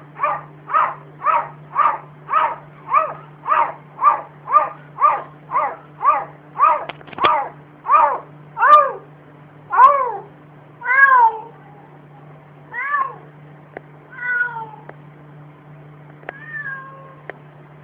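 A cat meowing over and over, at first about two short meows a second, then slower, longer meows that rise and fall in pitch and trail off near the end.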